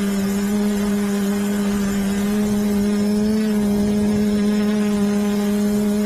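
Quadcopter drone's motors and propellers whining steadily in flight, heard from the drone itself, the pitch wavering slightly as it manoeuvres.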